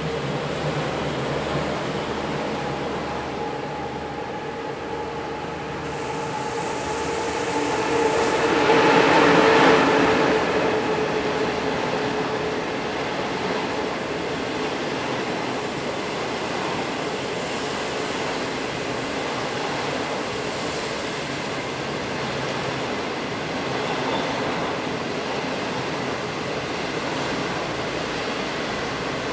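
HXD1D electric locomotive passing at speed, a steady whine over its running noise swelling to its loudest about nine seconds in and then fading, followed by the steady rumble of 25K passenger coaches rolling by on the rails.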